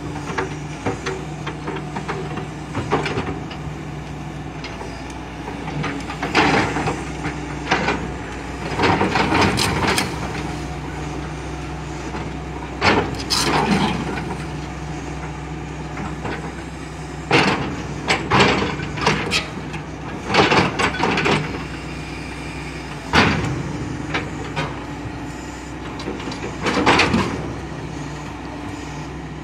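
Hitachi EX200 hydraulic excavator's diesel engine running steadily, with repeated loud clanks and knocks in clusters as the machine works its boom and bucket.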